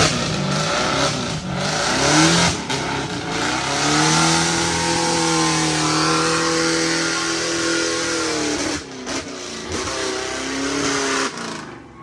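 Off-road 4x4's engine revving hard under load, its pitch rising and falling several times, with a steady hiss over it. The engine note falls away about eleven seconds in.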